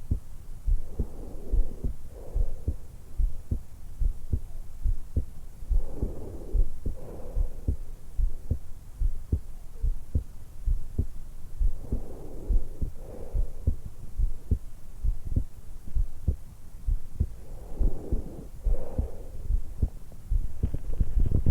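A woman's heartbeat and breathing picked up by a stethoscope microphone pressed to the hollow at the base of her throat, at rest just after waking. There is a steady run of low lub-dub thumps, and a soft breath in and out about every six seconds.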